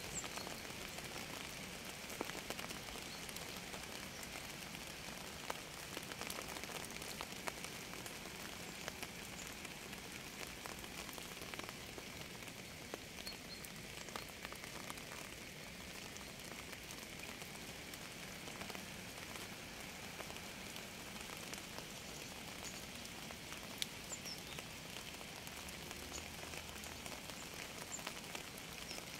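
Steady rain falling, with many individual drops ticking on a surface.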